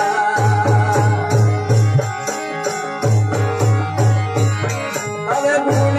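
Instrumental passage of a Marwari folk bhajan: dholak drum strokes in a steady rhythm over held harmonium notes and the tandura's drone, with jingling clapper beats. The drum drops out briefly twice, about two seconds in and again near the end.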